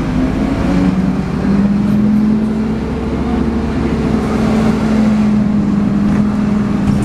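MAN 18.240LF Alexander Enviro 300 single-deck bus under way, heard from on board: a steady engine drone with a 'hoover'-like whine that rises slightly about a second in and then holds.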